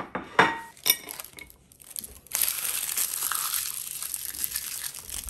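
Plastic hard-candy wrappers crinkling as the candies are unwrapped, running without a break from about two seconds in. In the first second, a couple of sharp clinks as hard candies drop onto a ceramic plate.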